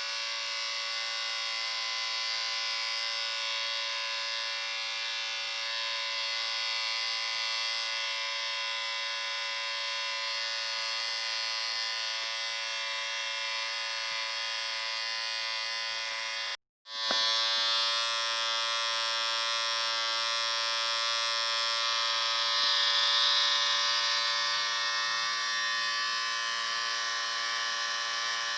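Electric shaver running with a steady buzz. It cuts out for an instant about seventeen seconds in and comes back a little louder.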